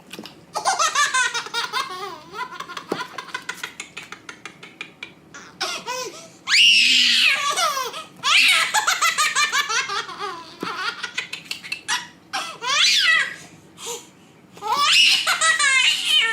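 Baby laughing hard: long runs of quick giggles broken by high-pitched squeals.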